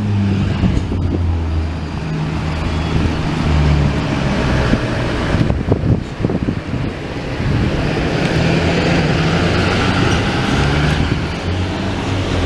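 Car engines in a crowded parking lot, a steady low hum of motor traffic, with a short cluster of knocks about six seconds in.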